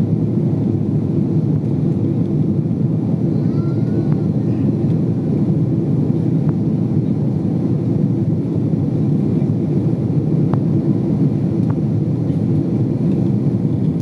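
Steady low jet-engine and airflow noise inside an airliner cabin during takeoff, holding an even level throughout, with a few faint clicks.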